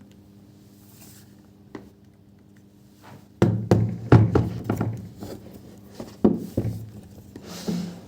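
A quick series of knocks and thumps of something being handled, starting about three and a half seconds in, over a steady low hum.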